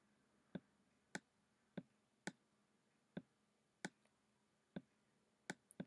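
Laptop trackpad clicking: about nine short, faint clicks at irregular intervals, each one a press or release as handwriting strokes are drawn with the trackpad.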